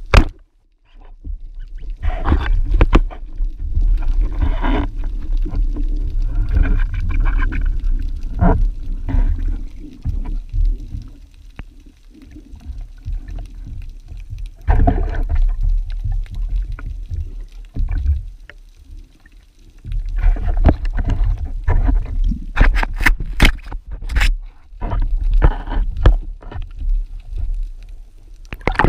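Underwater sound through an action camera's housing: a sharp snap right at the start as the band-powered speargun fires, then rushing, gurgling water noise with scattered knocks as the diver moves, and a quick run of sharp clicks and knocks a little over twenty seconds in.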